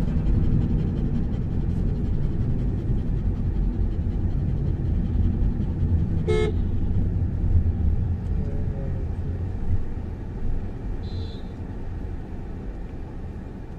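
Steady road and engine rumble inside a Tata Altroz's cabin, growing quieter as the car slows down. About six seconds in, a short car horn toot sounds, and a brief high beep follows near the end.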